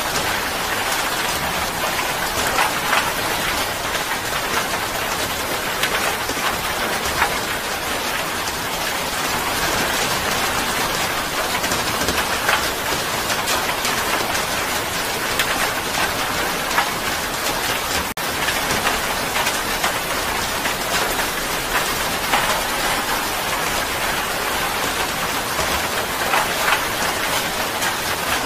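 Steady rain: a dense, even hiss of falling drops with scattered louder splashes, and a momentary break about two-thirds of the way through.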